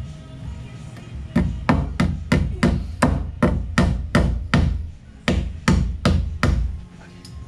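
A hammer driving a cable staple into a wooden roof truss to fasten electrical cable: a steady run of about fifteen quick blows, roughly three a second, starting a little over a second in.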